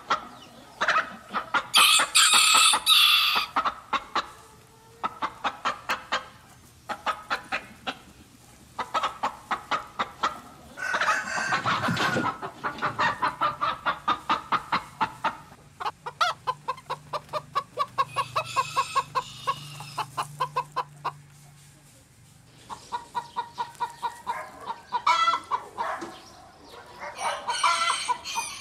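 Domestic chickens clucking in quick runs of repeated calls, broken now and then by louder, higher calls.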